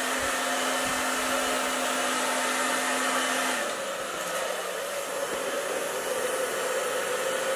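Hand-held hair dryer running steadily, blowing air. Its motor hum drops slightly in pitch and the level dips a little about three and a half seconds in.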